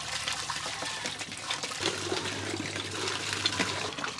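Water gushing from a cast-iron hand lever pump's spout and splashing into a plastic bucket: a steady rush with irregular small splashes.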